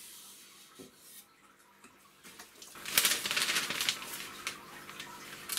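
A deba knife blade wiped with newspaper: a loud papery rasp about three seconds in, lasting about a second, then fainter rubbing.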